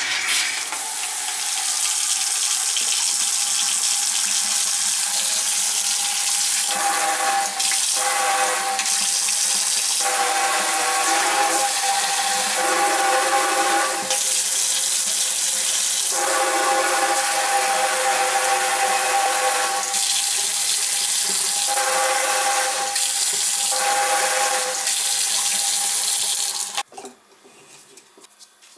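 Water running hard from a newly installed kitchen faucet into a stainless steel sink, the splash changing as gloved hands work at the spout. A steady tone fades in and out through the rush. The water is shut off suddenly about 27 seconds in.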